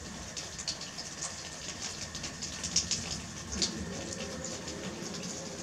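Water drops after a rainstorm, falling and ticking at irregular moments over a steady low hiss.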